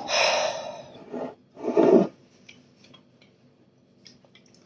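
Naan dough being mixed in a bowl, flour and yogurt stirred together: three rough scraping strokes in the first two seconds, the last the loudest, then only faint light ticks.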